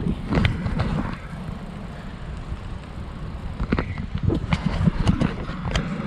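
Bicycle rolling over brick paving: wind buffets the microphone over a low rumble from the tyres, with occasional light knocks and rattles.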